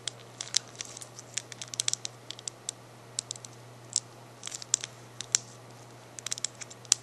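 Irregular small plastic clicks and creaks from the arm of a pair of Oakley Flak Jacket XLJ sunglasses being twisted at the hinge against the frame to unclip it, with a sharper click near the end, over a faint steady hum.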